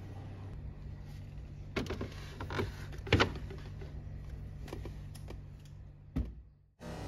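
Lidded plastic food containers knocked and set down on a refrigerator shelf: a few dull knocks, the loudest about three seconds in and a last thump near the end, over a steady low hum.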